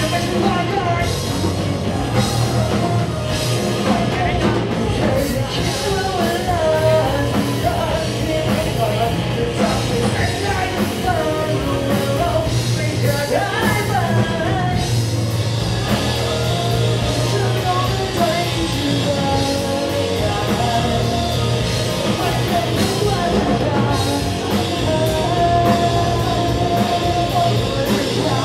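Post-hardcore band playing live: electric guitars, bass and drums at full volume with a vocalist singing into the microphone.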